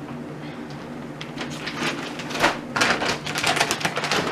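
Plastic dog-food bag crinkling and rustling as it is lifted and handled: a dense run of quick crackles that starts about a second and a half in and grows busier toward the end, over a steady low hum.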